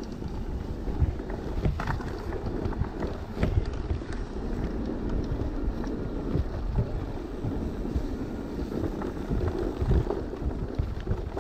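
Mountain bike rolling over a bumpy grass-and-dirt track: a steady rumble of wind on the microphone and tyres on the ground, with scattered knocks and rattles from the bike jolting over the ruts.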